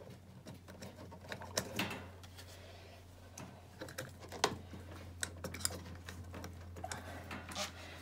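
Irregular light clicks and rustling of plastic wire-harness connectors and wires being handled on a refrigerator's control board, over a faint steady low hum.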